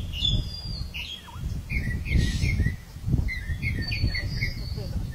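Birds chirping in runs of short, quick notes, with a thin higher whistle in the middle, over an uneven low rumble.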